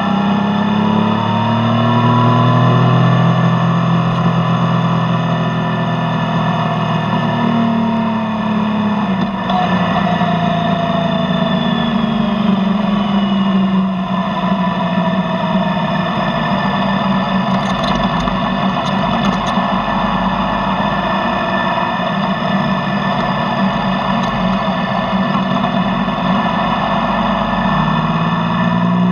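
Yamaha Tracer motorcycle engine running through its stock exhaust, its pitch slowly rising and falling.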